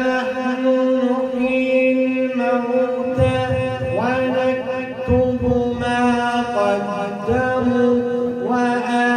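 A man's solo voice in melodic Quran recitation (tilawa), drawing out long held notes and sliding between pitches in ornamented phrases.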